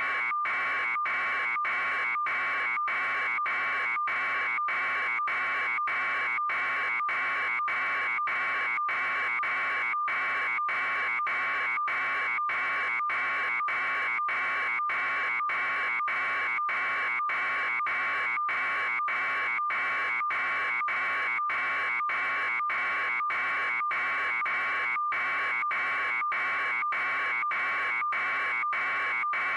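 A steady, harsh electronic buzz with a constant high tone inside it, broken by short, evenly spaced gaps about twice a second; it does not change at all.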